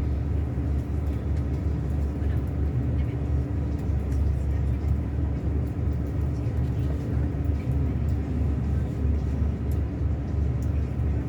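Scania K360 bus engine running steadily: a deep, even drone with a faint steady hum above it and no change in speed.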